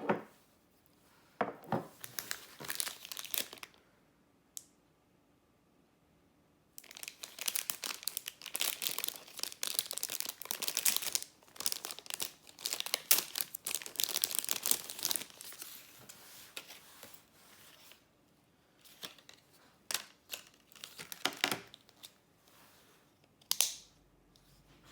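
Packaging being torn open and crinkled by hand, in irregular bursts with one long stretch of crinkling through the middle and short bursts near the end.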